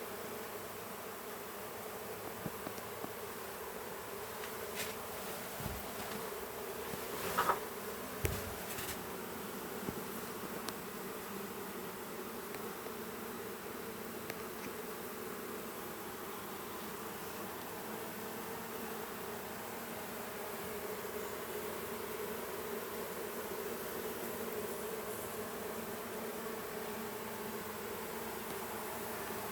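A large honeybee colony in an opened wall cavity buzzing steadily, a dense, even hum. A few short knocks sound about five seconds in and again around seven to nine seconds in.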